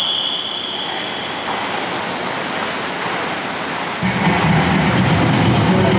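A long, high whistle blast that fades out about a second and a half in, then the steady hiss of a large indoor pool hall. About four seconds in, the duet's routine music starts, louder, with a strong low beat.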